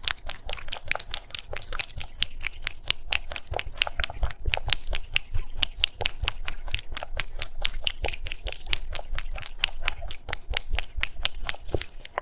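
An animal crunching and chewing food: quick, irregular crunchy clicks, several a second, without a break.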